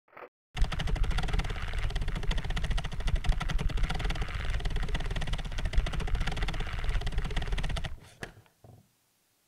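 Hand-cranked rotary flip-book (mutoscope) being turned: its cards snap over one after another in a fast, even clatter. It starts about half a second in and stops suddenly near the end, followed by a couple of single clicks.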